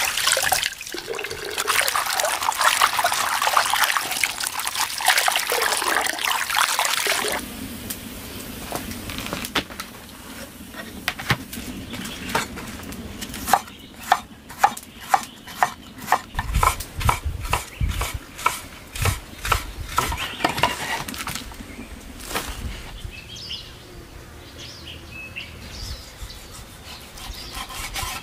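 Tap water running and splashing into a clay basin while leafy greens are rinsed by hand, lasting about seven seconds. Then a cleaver chops on a wooden cutting board in a run of sharp knocks, about two a second.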